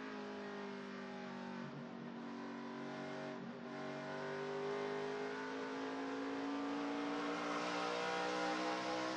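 NASCAR Camping World Truck Series race truck's V8 engine at race speed, heard from onboard. The pitch sags through the turn with two brief dips about two and three and a half seconds in, then climbs steadily as the truck accelerates down the straight.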